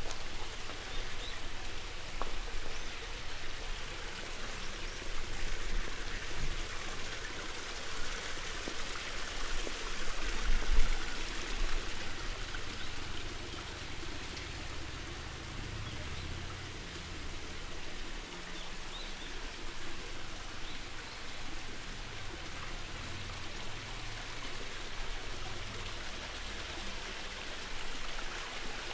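Steady hiss of water, with a low rumble that swells briefly about ten seconds in.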